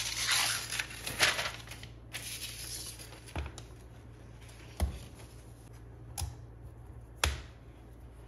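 Unboxing packaging rustling and crinkling as it is handled for about two seconds. Then four light, sharp taps or knocks follow, spaced a second or more apart.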